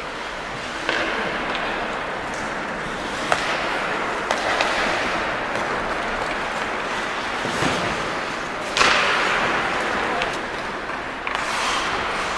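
Ice hockey play on a rink: skates scraping the ice and sticks clacking on the puck in scattered sharp knocks, with a louder bang about nine seconds in.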